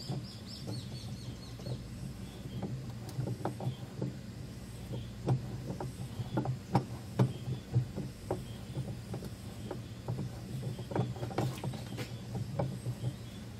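Gear puller's centre screw being turned slowly by hand with a bar to draw a top-loading washing machine's tub up off its drive shaft: irregular small metallic clicks and creaks, about two a second, over a steady low hum.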